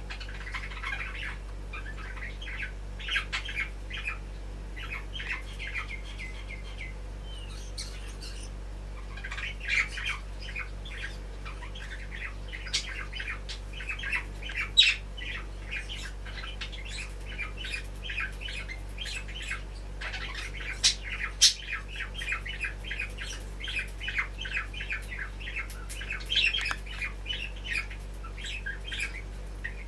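Garden birds chattering, a dense run of short chirps and squawks from several birds at once, with a few louder, sharper calls about halfway through.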